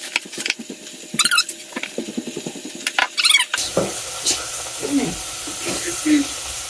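Chef's knife slicing through tomatoes and tapping on a wooden cutting board in a run of short knocks, with two brief high squeaks, one about a second in and one about three seconds in.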